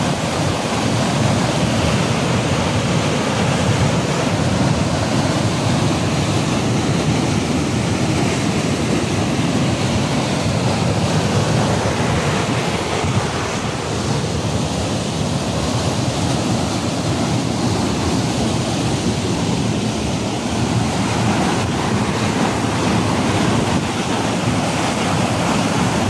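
Basaseachi Falls in full rainy-season flow: white water rushing steadily through a rock chute and pouring over the lip of the falls.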